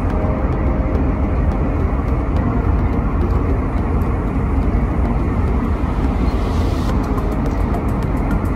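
Steady rumbling drone of an airliner cabin in flight, engine and air noise with no break.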